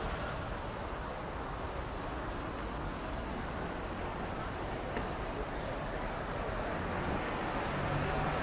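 City street traffic: cars, taxis and a van passing with a steady rumble of engines and tyre noise. It grows louder for a second or two about two and a half seconds in, and a van's engine draws close near the end.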